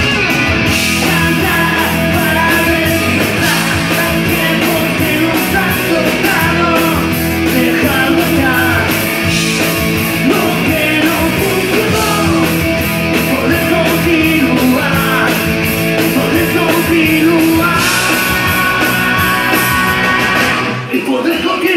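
Live rock band playing: distorted electric guitars, bass guitar and a drum kit, with a male lead vocal. The music dips briefly near the end.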